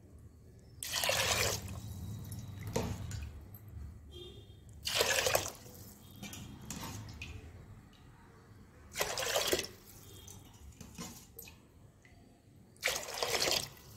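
Water poured by the glassful into a pressure cooker holding rice, toor dal and vegetables: four short pours, about four seconds apart.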